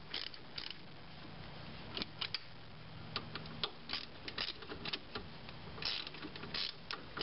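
Ratchet wrench clicking in short, uneven strokes as a brake caliper bolt is run in.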